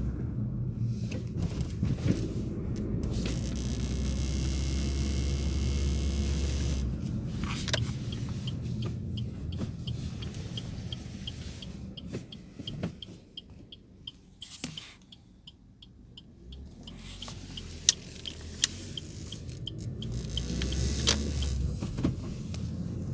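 Inside a Suzuki Vitara's cabin: a steady low rumble from the vehicle with scattered sharp clicks and a faint, evenly repeating high tick, the abnormal cabin noise. The rumble drops away in the middle and builds again near the end.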